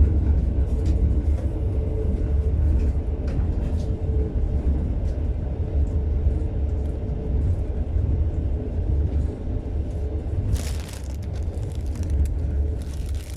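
Passenger train running, a steady low rumble heard from inside the carriage, with a couple of brief hissing bursts about ten seconds in and near the end.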